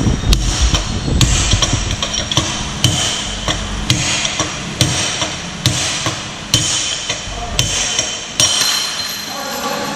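Hammer blows on a steel drift tube held against a Honda Winner 150's steering stem, driving a new steering-head bearing into place. About a dozen evenly spaced strikes, roughly one a second, each with a short metallic ring.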